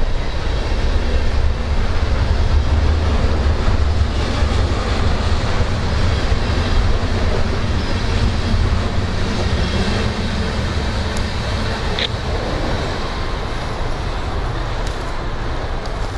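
Freight cars of a passing train rolling by, a steady low rumble that slowly fades as the last cars pass and the train moves away. A short high squeak cuts in about twelve seconds in.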